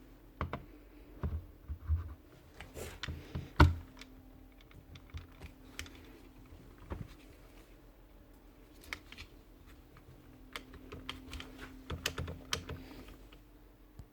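Light clicks and taps of small sander parts being handled and fitted by hand, irregular and scattered, with one sharper knock about four seconds in.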